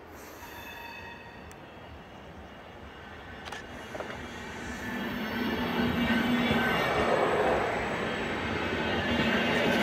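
SBB push-pull passenger train of EW IV coaches, led by its driving trailer, running past on the rails. The rolling noise of the wheels grows louder from about four seconds in as the train reaches the microphone, with a steady hum under the rumble as the coaches go by.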